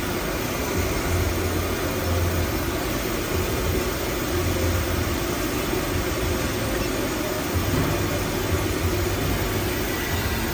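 Steady drone of running paper-converting machinery, with a low hum that swells and fades irregularly.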